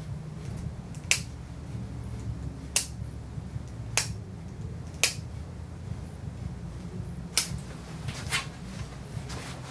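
Dog nail clippers cutting through a dog's toenails: about seven sharp snaps, one every second or so at irregular intervals.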